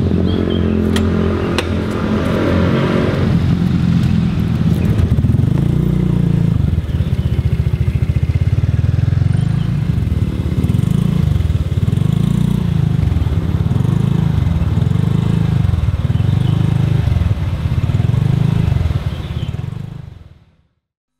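Small motorcycle engines, a Suzuki underbone and a scooter, running and pulling away with a note that swells and eases about once a second, then fading out near the end.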